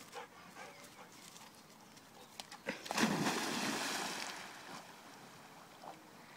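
Dog jumping into water from the bank: one big splash about three seconds in, with the churned water fading over the next second or so as it swims off.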